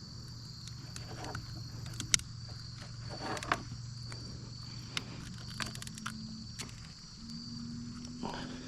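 Insects, crickets or similar, buzzing steadily in the background, with scattered light clicks and knocks.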